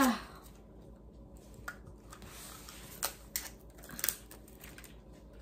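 Scattered small clicks and crinkles of thin plastic wrapping on a Mini Brands capsule being pulled open by hand, with a few sharper clicks about three and four seconds in.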